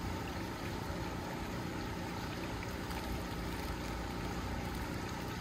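Portable generator running steadily, powering the pool's filter pump.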